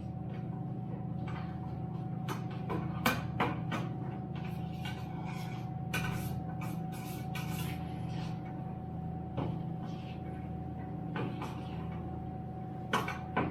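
Irregular scrapes and clinks of dark grains being stirred into the mash in the metal basket of an all-in-one electric brewing system, over the steady hum of its recirculation pump.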